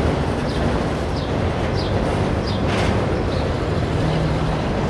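Freight train of autorack cars rolling past: a steady rumble and rattle of steel wheels on rail, with short high squeaks every so often.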